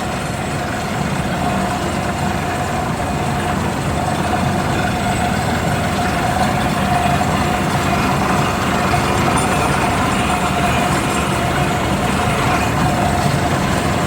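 Diesel air compressor and air-powered well-drilling rig running steadily at work: a loud, continuous machine noise with a steady whine.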